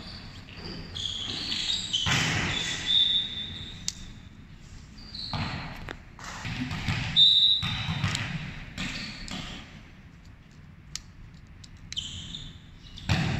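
Volleyball game echoing in a large hall: a few sharp hits of the ball, short high squeaks and players' shouts, in uneven bursts.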